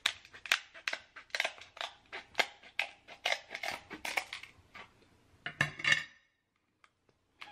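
Kitchen scissors cutting open a cooked king crab leg: a quick, irregular run of sharp snips and shell cracks, with a louder burst of cracking about six seconds in.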